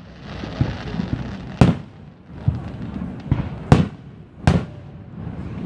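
Aerial fireworks shells bursting: three sharp, loud booms about one and a half, three and a half and four and a half seconds in, with smaller pops and crackle between them.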